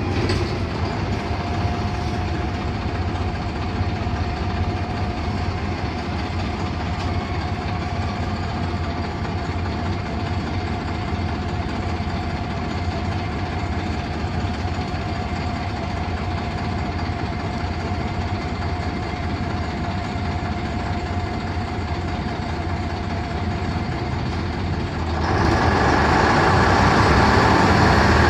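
LiAZ-5256 city bus's YaMZ-236 V6 diesel idling, heard from inside the cabin, with a low steady hum and a thin steady whine. About 25 seconds in, the engine noise gets suddenly louder and stays up.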